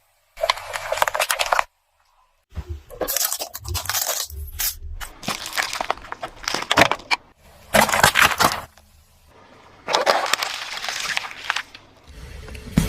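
Brittle objects crunching and cracking as a car tyre rolls over and crushes them. There are four bursts of crackling, each cutting off abruptly before the next.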